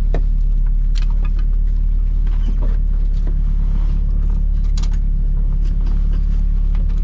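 A car engine running at a steady speed, with no revving and light scattered clicks.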